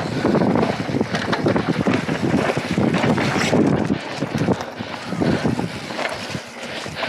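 Wind buffeting the action camera's microphone as a mountain bike is ridden at speed, with tyres on loose dirt and the bike rattling and knocking over rough ground in many short clatters.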